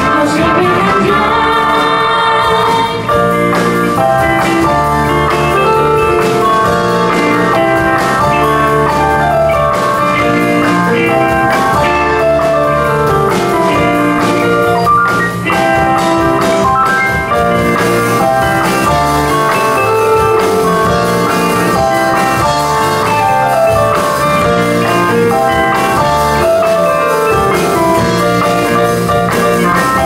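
Live band playing amplified music: a woman singing into a microphone over electric guitar, electric bass and drum kit.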